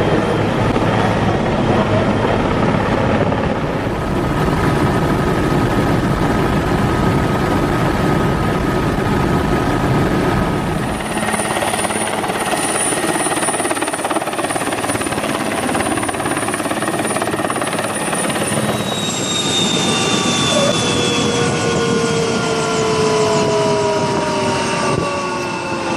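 Oryx helicopter's twin Turbomeca Makila 1A1 turboshaft engines and rotors running, a dense steady noise with a high turbine whine. About two-thirds of the way through, several whining tones begin to slide slowly down in pitch together.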